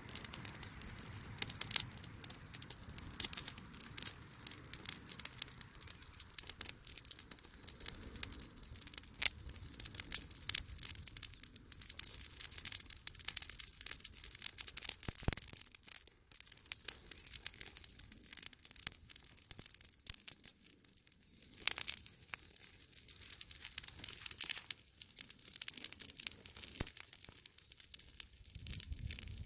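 Dry leaves burning on a saucer swing's fabric seat, crackling and popping in quick, irregular snaps.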